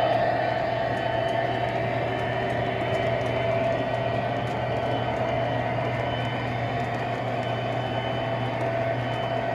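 Model freight cars rolling past on three-rail track: a steady rumble and hum of metal wheels on the rails, with faint scattered ticks.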